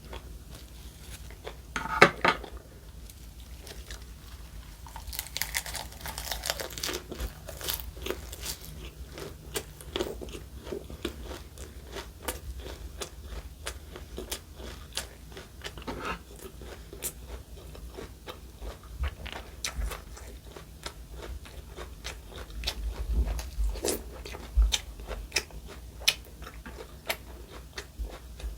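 Close-miked crunching and chewing of food, a dense run of sharp crisp snaps with a louder crunch about two seconds in.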